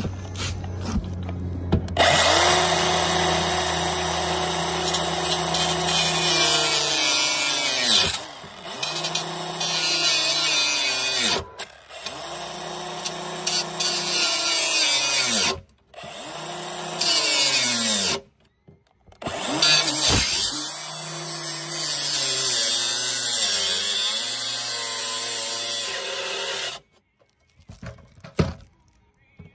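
Cordless compact circular saw cutting in about five runs, its motor pitch dropping as the blade bites and as it winds down between runs. It stops a few seconds before the end, leaving a few light handling clicks.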